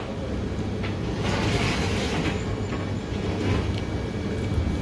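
Steady low rumble of background room noise, with faint rustling about a second in.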